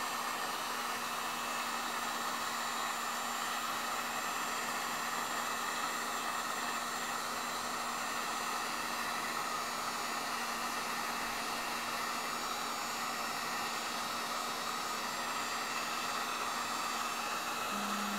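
Heat gun blowing hot air steadily: an even rush of air with a constant low hum from its fan motor.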